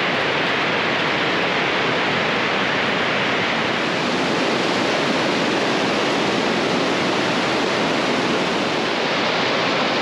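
Whitewater of the Lammer river rushing through a narrow rock gorge: a steady, even rushing of water.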